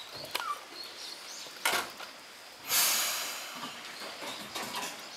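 Eizan Electric Railway 900 series railcar standing at the platform and letting out a sudden, loud hiss of compressed air, most likely the brake release before it pulls away. The hiss fades over about a second. A shorter burst comes a second before it, and birds chirp faintly at the start.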